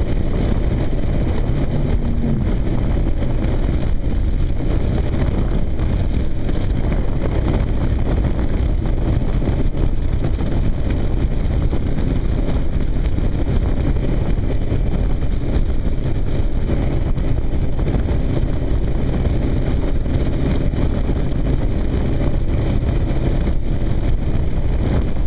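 Kawasaki KLR single-cylinder motorcycle running steadily at riding speed, its engine drone mixed with constant wind rush over the camera microphone.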